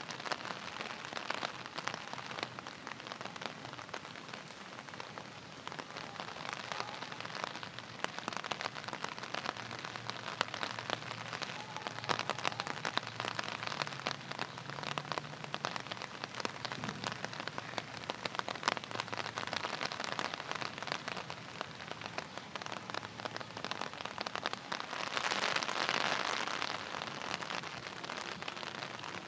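Steady rain falling, a dense patter of drops on hard surfaces, swelling louder for a couple of seconds near the end.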